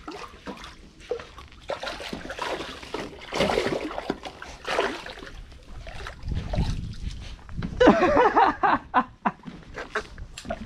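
A hooked catfish thrashing and splashing at the water's surface as it is brought alongside and lifted out, with a few sharp knocks near the end.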